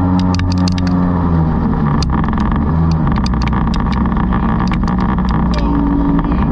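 Kingfisher jet boat's engine and water jet running steadily under way up a shallow river, with water rushing past the hull. Many short sharp ticks and clicks sound through it, and the engine note shifts about two seconds in.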